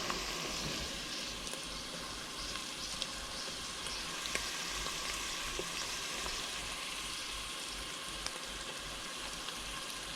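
Diced onions and shallots frying in olive oil in a pan: a steady sizzle with small scattered pops as they soften.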